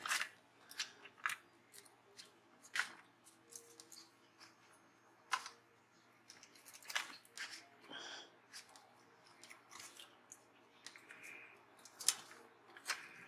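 Light desk handling sounds: scattered short taps, clicks and rustles of paper planner stickers being peeled, placed and pressed down onto a planner page.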